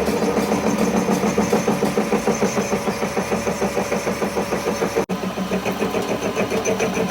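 A machine or engine running steadily with a fast, even pulse of about five beats a second, broken by a very short dropout about five seconds in.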